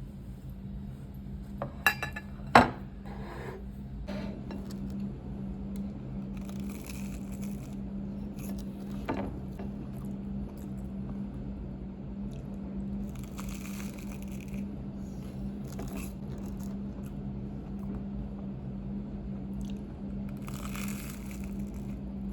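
Dishes and cutlery clinking, with one sharp clink about two and a half seconds in and another near nine seconds, over a steady low electrical hum. A few short hissy rustles come and go.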